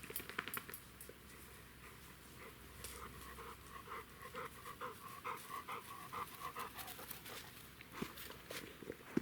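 Quick, rhythmic panting breaths, two to three a second, from a person out of breath while moving off fast on foot. A few sharp clicks come in the first second.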